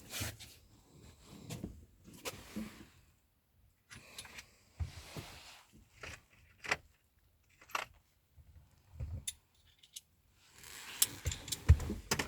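Steel hand tools clinking and scraping as a socket wrench with a stronger handle is fitted and worked on a 12 mm bolt: scattered sharp clinks and short scrapes, busier near the end.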